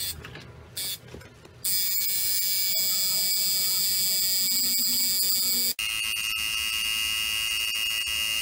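Tattoo machine buzzing steadily with a high-pitched tone. The buzz starts abruptly about two seconds in, and its pitch jumps suddenly about six seconds in.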